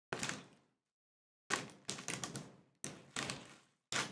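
A handful of short, separate bursts of chewing and paper-wrapper crinkling as a burrito is eaten, with dead silence between them.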